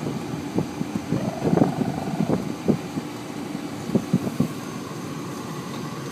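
A drawn-out vocal call that rises and falls in pitch, about a second long, starting a little over a second in, with scattered clicks and knocks around it.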